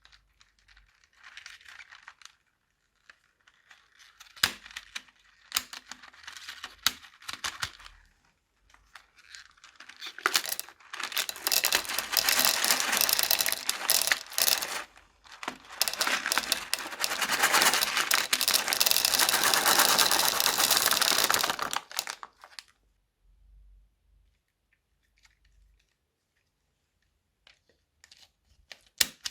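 Crunchy slime and plastic piping bags being handled, crackling and crinkling. It starts as scattered clicks and crackles, builds to a long dense crackle through the middle, then dies away near the end.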